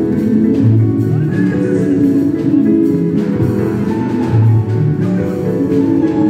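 Live gospel band music: bass and guitar lines over drums, at a steady dance beat, in a large hall.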